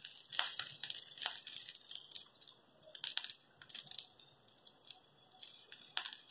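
Chopped onion pieces sprinkled by hand onto pav bhaji–topped bread slices on an iron griddle: faint scattered light patters and rustles.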